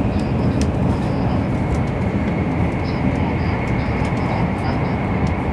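Running noise inside a Kyushu Shinkansen N700 series 8000 car: a steady low rumble with a faint high steady tone above it.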